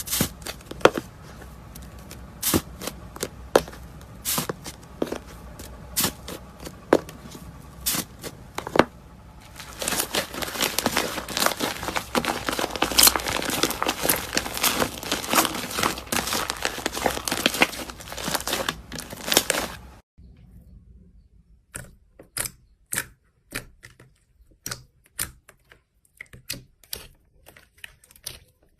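Slime being squeezed and poked by hand: scattered sticky pops and clicks, then a long stretch of dense crackling and crinkling, then after an abrupt change a run of separate sharp clicking pops, about two a second.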